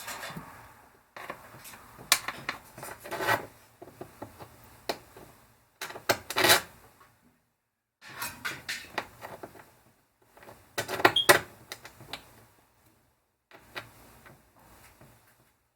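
Small metal parts clinking and rubbing, with scattered clicks and short rattles, as a universal gas pedal's bracket and fasteners are handled and fitted by hand. The louder rattles come about two, three, six and eleven seconds in.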